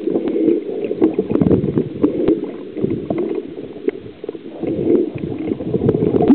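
Muffled underwater noise picked up by a submerged camera: a steady churn of water movement and bubbles, with scattered clicks and knocks. The sound eases off briefly about two thirds of the way through.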